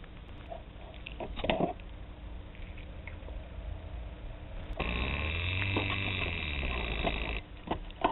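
Handling noise from a kitten rubbing and pawing at a security camera up against its microphone: scattered scrapes and knocks, then a louder steady buzzing noise for about two and a half seconds past the middle, over a low hum.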